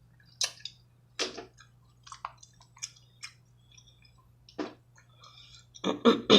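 Close-miked wet chewing and lip smacking while eating sauce-covered seafood, heard as a string of separate clicks and squelches that grow denser near the end.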